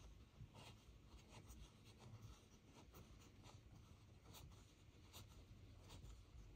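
Near silence: faint room tone with soft, irregular ticks and scratches.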